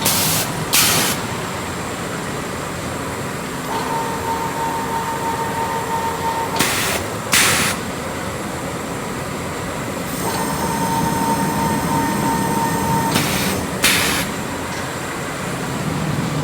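Cooling pad production machinery running steadily, with a pair of short, loud hissing bursts that comes three times, about every six and a half seconds, and a faint steady tone that comes and goes.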